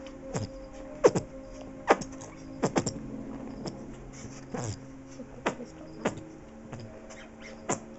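Puppy making short, sputtering fart-like noises with a dog toy whose squeaker has been removed, about nine times at irregular intervals, some dropping quickly in pitch. A steady low hum runs underneath.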